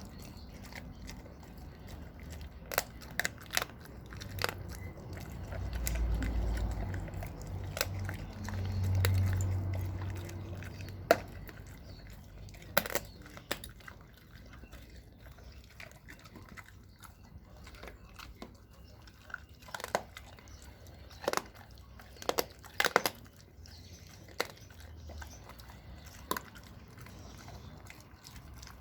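American bulldog chewing raw meat and bone, with irregular sharp crunches and cracks as she bites through it. Low rumbling between about six and ten seconds in.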